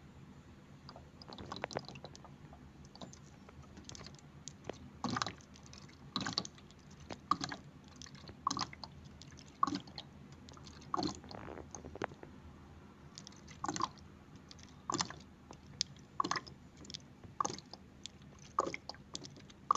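An ink bottle turned upside down in a Canon G3411 printer's black ink tank inlet, gurgling as the ink drains into the tank. It gives irregular short wet pops, about one every half second to a second.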